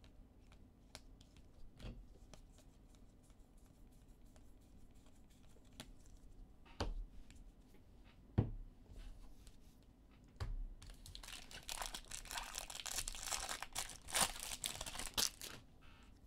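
A trading-card pack's wrapper being torn open and crinkled, a few seconds of dense crackling near the end. Before it, light clicks and a few sharp taps from cards being handled.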